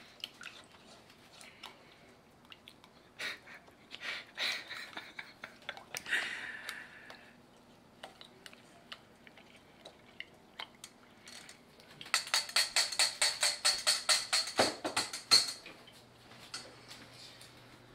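A spoon stirring a custard mixture in a stainless steel pot: scattered clinks and scrapes against the metal, then a fast run of rhythmic strokes, several a second, for about three seconds about twelve seconds in.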